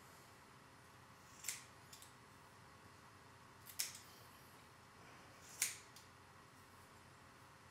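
Haircutting scissors snipping through hair, three short, sharp snips about two seconds apart.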